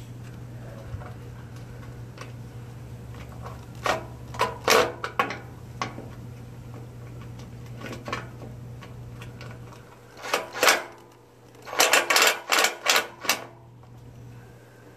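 Clicks and knocks of a round headlight housing being pushed and worked into its opening in a riding mower's plastic hood, in several short runs, the busiest near the end. A steady low hum underneath stops about two-thirds of the way through.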